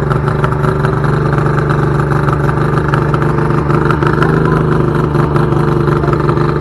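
Outboard motor on a 2006 Lowe Fishing Machine 165S running steadily at idle.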